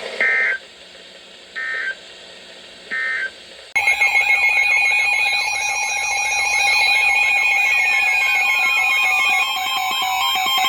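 Emergency Alert System header: three short modem-like data bursts about a second and a half apart, then, nearly four seconds in, a loud electronic alert alarm with a fast warbling tone and several falling sweeps.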